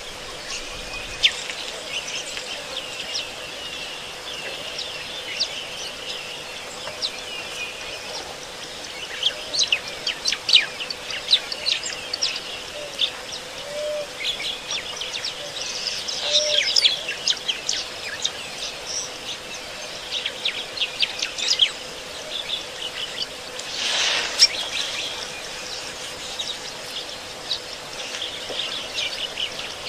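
Many wild birds chirping and calling over one another: short, high chirps, some in quick trills, with a faint steady hum underneath. A brief louder rush comes about two-thirds of the way through.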